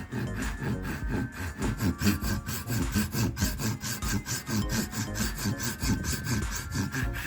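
Wooden hammer handle being worked by hand with a saw or rasp: quick, even back-and-forth strokes, about five a second.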